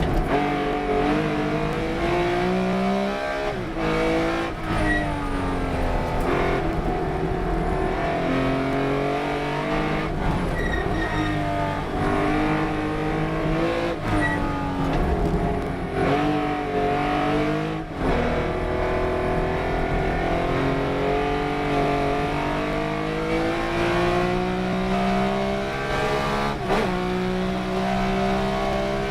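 Race car engine run hard around a circuit, its pitch climbing under acceleration, breaking off at short gear shifts and dropping as it slows for corners, over and over.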